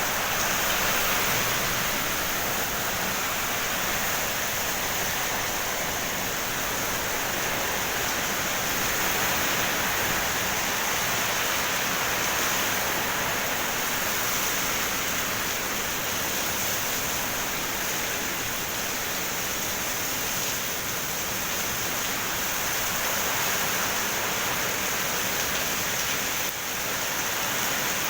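Heavy rain pouring down in a storm, a steady dense hiss with a brief slight dip about 26 seconds in.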